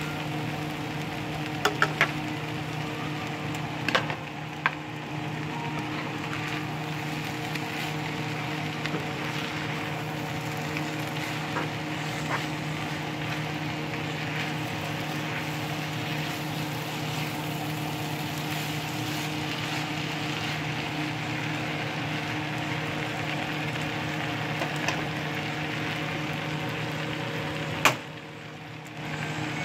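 Yakisoba noodles and vegetables sizzling in a frying pan while metal tongs toss them, with sharp clicks of the tongs against the pan a couple of times early on and once near the end, over a steady hum.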